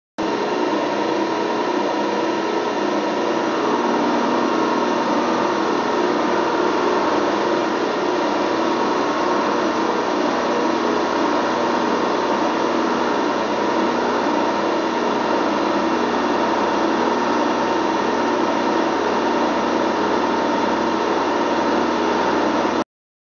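Milling machine running an indexable carbide face mill across a 12L14 steel muzzle brake, milling off a flat face. The steady machining noise starts suddenly just after the beginning and cuts off suddenly near the end.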